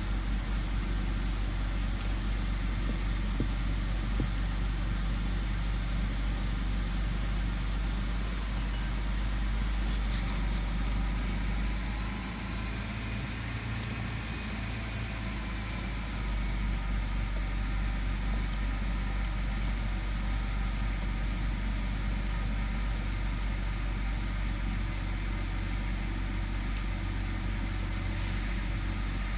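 2006 BMW 530i's straight-six engine idling steadily. It runs smooth, with the misfire cured by a new cylinder-five ignition coil.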